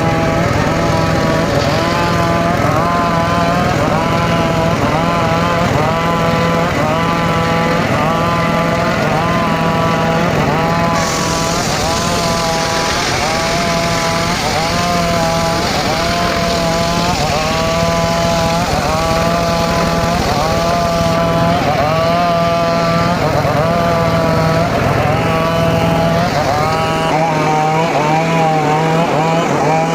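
Engine-driven homemade circular saw running continuously while cutting teak wood, its whine dipping in pitch and recovering about once a second as the blade takes load.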